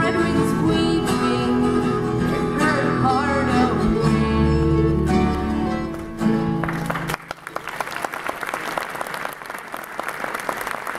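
A bluegrass band of mandolin, acoustic guitars and upright bass plays the closing bars of a song with a woman singing lead, ending on a held final chord about seven seconds in. Audience applause follows to the end.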